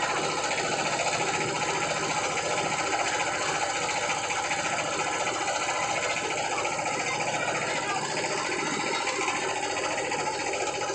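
Small boat engine running steadily with a fast, even beat.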